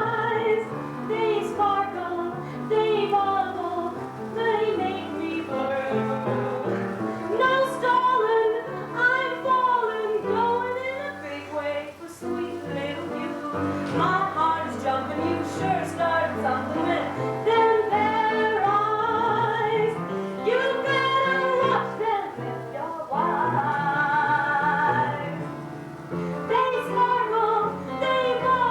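Music: a woman singing with a strong vibrato over instrumental accompaniment with a stepping bass line.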